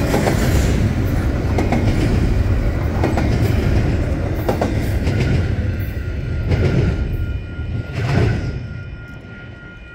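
The last double-stack well cars of a freight train rolling by: a steady rumble of steel wheels on rail with repeated clacks as the wheels pass. The sound fades away as the end of the train goes past, about eight seconds in.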